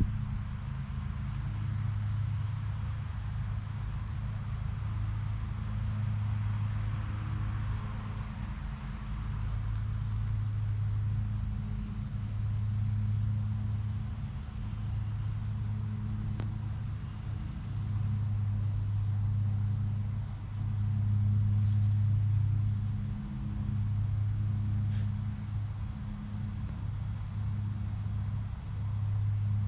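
Steady trilling of insects, such as crickets, over a low, level hum that swells and fades every couple of seconds.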